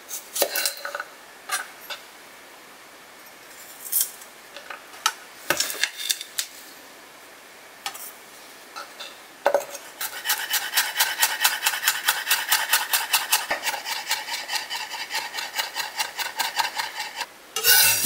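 Kitchen knife cutting a garlic clove on a wooden cutting board: a few separate cuts at first, then from about ten seconds in fast, even chopping at about six strokes a second as the garlic is minced. A short, louder rush of noise comes at the very end.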